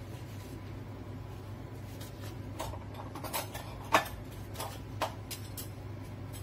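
Plastic bench scraper cutting a block of cheese into strips, each cut ending in a short sharp tap on the silicone mat; a handful of taps begin a couple of seconds in, the loudest about four seconds in, over a steady low hum.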